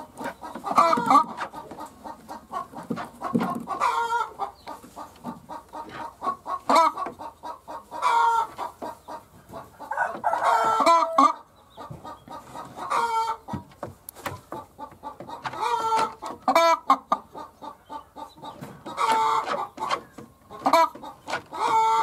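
Hens clucking in a nest box: a quick run of short clucks broken about every two seconds by a louder, drawn-out call.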